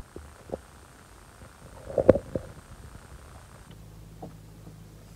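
Water gurgling and lapping against the side of a small rowboat, with a short cluster of gurgling knocks about two seconds in. A low steady hum sets in a little past halfway.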